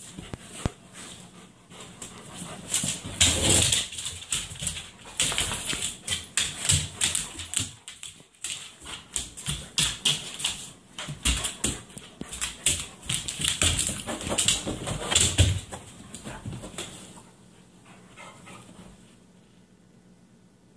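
Two Great Pyrenees dogs play-fighting: a busy run of dog vocalizing and scuffling on the couch cushions, which dies down about three seconds before the end.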